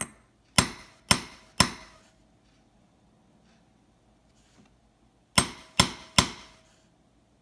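Sharp metal-on-metal taps of a small hammer on a round-faced staking punch, six strikes in two groups of three about half a second apart, each with a short metallic ring. The punch is spreading the rivet that fixes the balance wheel onto a new, riveted balance staff.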